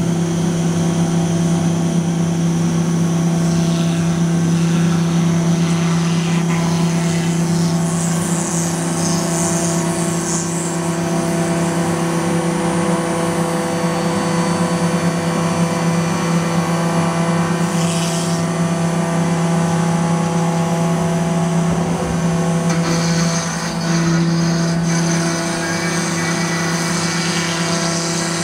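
CNC router spindle running steadily with a constant whine, its bit cutting a groove into a wooden door panel. About two-thirds of the way through, the tone dips briefly and then steps up again.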